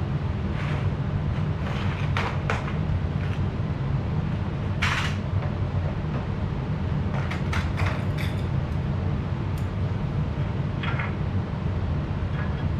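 Scattered metal clanks, knocks and scrapes of steel three-point hitch parts being handled and fitted to a garden tractor, with a longer scrape about five seconds in and a cluster of knocks around eight seconds, over a steady low rumble.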